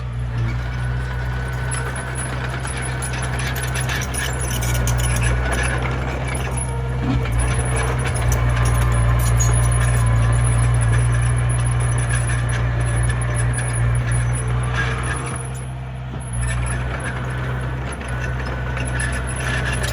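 Komatsu mini bulldozer's diesel engine running steadily, louder for a stretch in the middle, with scattered clanks and knocks.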